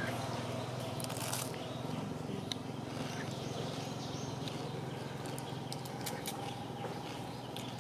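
Outdoor background: a steady low hum with scattered faint clicks and ticks.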